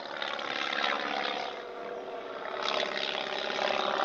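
Steady drone of a propeller aircraft's engine, swelling a little in the second half.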